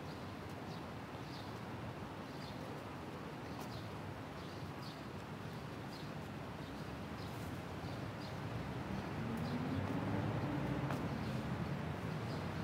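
Footsteps on pavement at a steady walking pace, about one and a half steps a second, over a low steady traffic hum. Over the last few seconds a vehicle's engine grows louder as it approaches.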